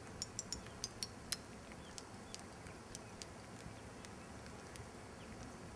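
Faint, sharp, high clicks like small clinks: about seven in quick succession in the first second and a half, then a few scattered ones. Under them is a low hiss with a few faint short chirps.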